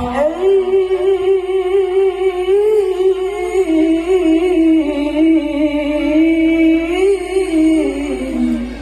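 A young man's unaccompanied solo voice, amplified through a PA system, chanting a long, melismatic melodic line. It slides up into a held note just after the start, ornaments it for several seconds, and falls away near the end.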